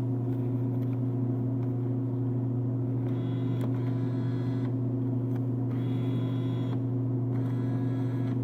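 Steady low electrical hum from the vending machines, with a fainter, higher whir that starts about three seconds in and comes back twice: the bill acceptor's motor drawing in the taped bill and pushing it back out.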